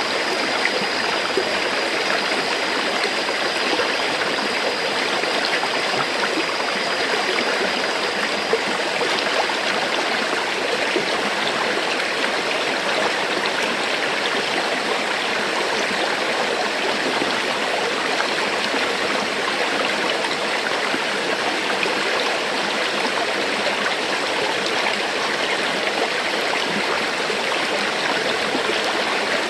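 River water flowing steadily over rocks, an even, unbroken rush with a faint thin high tone that fades out about nine seconds in.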